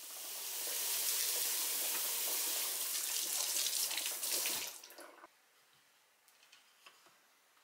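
Tap water running steadily into a sink for about five seconds, then shut off. A few faint light knocks follow as vegetables are set down on a wire mesh tray.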